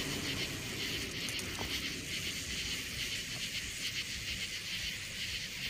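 Steady chorus of night insects: a high, finely pulsing buzz, over a low rumble.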